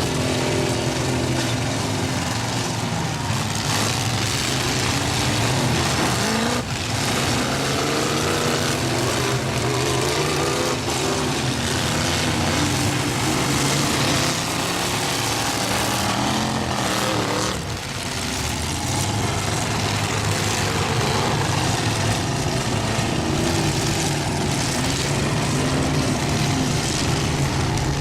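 Truck engines in a demolition derby running and revving hard together, several pitches rising and falling over one another.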